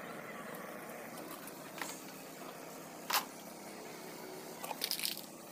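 A few short, sharp clicks over a steady low hum: one a little under two seconds in, a sharper one about three seconds in, and a quick cluster near the end.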